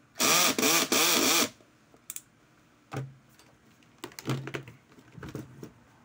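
Cordless drill-driver run in about three quick trigger pulses, its motor whine rising and falling each time, as it drives out screws on a fan's motor housing. It is followed by scattered clicks and knocks of parts being handled.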